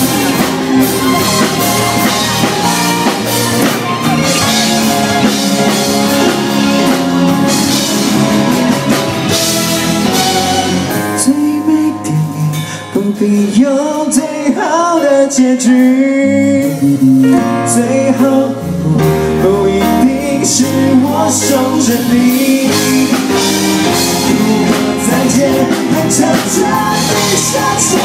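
Live rock band playing through a PA: electric guitar, bass, keyboard and drum kit, with a male lead singer. About eleven seconds in the drums and cymbals drop out for a few seconds of quieter passage with bending melody notes, then the full band comes back in.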